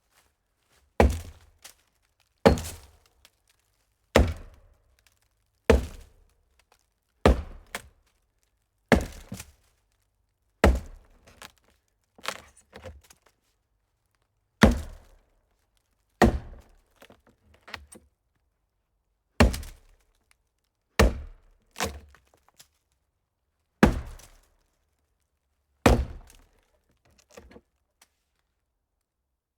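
Axe chopping into a hollow tree: a steady series of heavy wooden blows, about one every second and a half, some followed by smaller cracks and knocks as the wood breaks apart.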